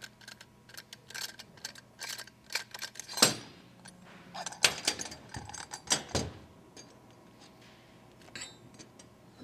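Scattered metal clicks, clinks and knocks of a 316 stainless steel sanitary butterfly valve being taken apart by hand as its single body clamp is undone. The loudest knocks come about three seconds in and again near six seconds, and it grows quieter after about seven seconds.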